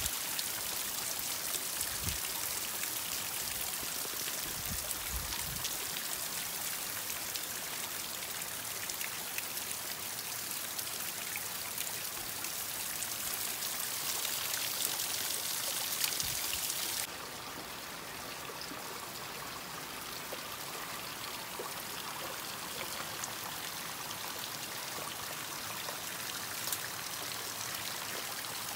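Water trickling and splashing down a wet rock face in thin falling streams, a steady hiss of spattering drops. The hiss drops abruptly to a lower level a little past the halfway point.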